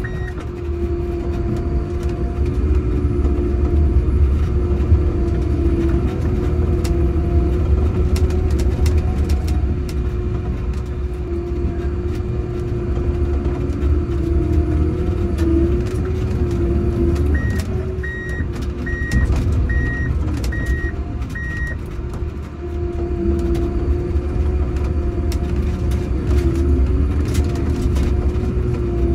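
Prinoth Bison snowcat's diesel engine running under load as the front blade pushes snow, heard from inside the cab: a deep, steady drone with a wavering whine over it. About two-thirds of the way in, six short high beeps sound at an even pace.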